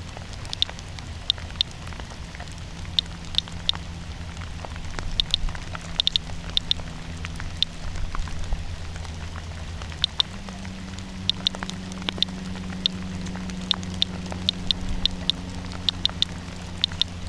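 A Radiation Alert Inspector Geiger counter chirps once for each detected count, in sharp clicks at random, irregular intervals, about two a second; its display reads about 0.31 µSv/h. Under the clicks runs a steady low rumble that grows stronger about ten seconds in.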